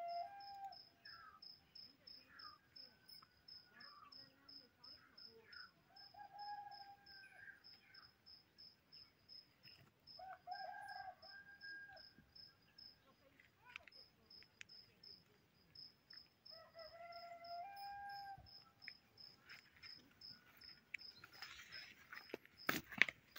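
Crickets chirping faintly and steadily in a high, even pulse of about three chirps a second. Several held, pitched calls of about a second each come every few seconds, and a few loud knocks sound near the end.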